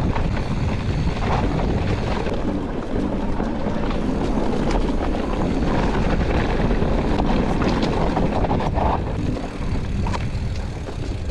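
Wind buffeting the microphone of a camera riding along on a mountain bike at speed, with scattered clicks and knocks from the bike going over a rough trail.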